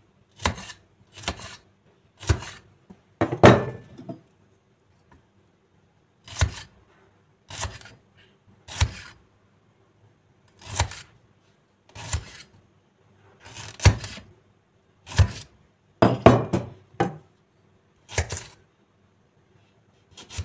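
A freshly sharpened cleaver and hatchet chopping through a cucumber onto a stainless steel plate: about fifteen sharp knocks of blade on plate, a second or two apart, with a short pause near the middle.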